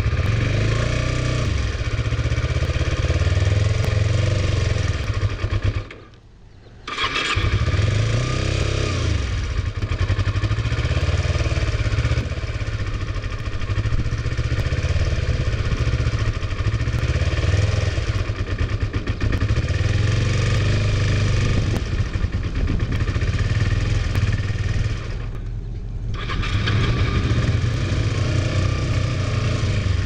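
Kawasaki Ninja 250R's small parallel-twin engine running on a ride, mixed with wind noise over the helmet microphone. The sound cuts out for about a second some six seconds in, then carries on steadily.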